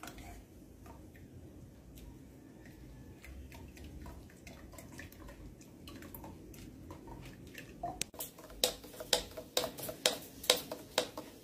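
A metal spoon stirring a drink in a glass pitcher, clinking sharply against the glass about twice a second from about eight seconds in. Before that, faint ticks and drips as fruit pulp is worked through a plastic strainer.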